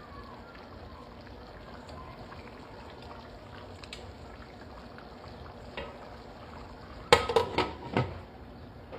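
Covered pot of rice pilau simmering with a steady soft bubbling hiss, then about four sharp knocks in quick succession a little after seven seconds in.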